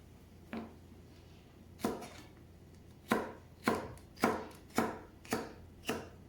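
Kitchen knife chopping on a cutting board. Two single cuts come first, then six evenly spaced chops at about two a second in the second half.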